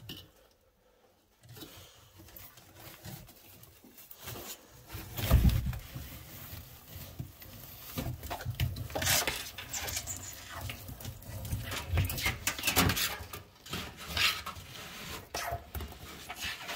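Savannah monitor lizard's claws scratching and scrabbling on the wooden enclosure wall and a woven sisal net as it climbs toward food, in irregular bursts of scrapes and clicks. There is one heavy thump about five seconds in.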